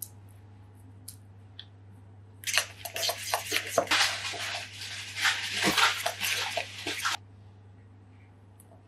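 Grated carrot tipped from a small ceramic dish into a bowl of oat batter and stirred in with a metal spoon: a dense scraping, clicking noise that starts a couple of seconds in and cuts off abruptly near the end, after a few faint clicks.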